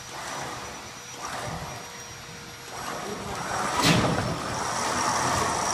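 Rolling and rattling of a car body on a wheeled dolly being pushed across a steel trailer deck, growing louder after about three seconds, with a sharp metal clank about four seconds in.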